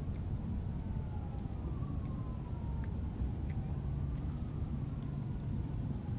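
A steady low rumble of wind and rippling water at a kayak's waterline. Over it, a faint distant siren wails, its pitch gliding slowly down and back up.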